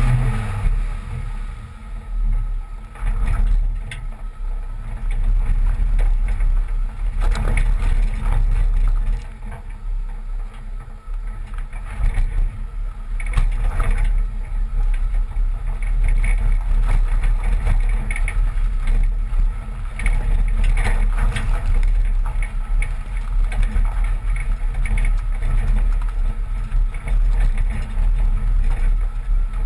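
1986 Toyota pickup with a 22R four-cylinder engine driving slowly over a rocky dirt trail, heard from beside the front wheel as a steady low rumble. Several sharp knocks and clunks come from the wheels and suspension striking rocks.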